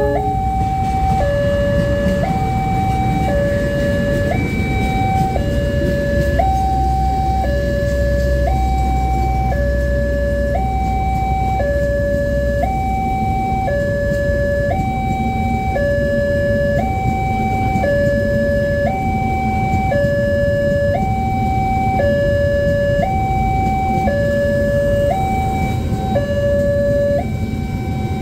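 Railway level-crossing warning alarm sounding a steady high-low two-tone, each tone held about two-thirds of a second, over a low rumble.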